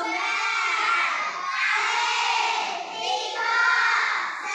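A class of young children shouting together in unison, many voices at once in three long phrases with short breaks between them.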